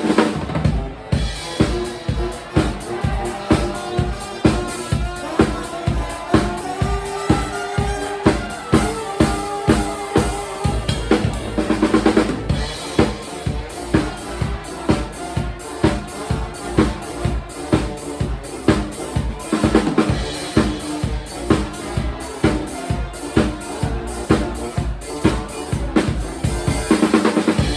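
Live band playing with a full drum kit keeping a steady beat under bass and other instruments. Busier drum fills come about twelve seconds in and again near the end.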